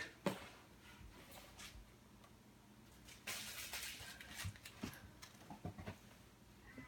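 Faint handling of blind-box toy packaging: a soft rustle of wrapping from about three seconds in, with scattered small clicks and taps.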